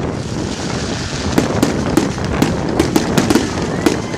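Fireworks display: about ten sharp bangs from bursting shells in quick succession over a continuous crackle, coming thickest in the second half.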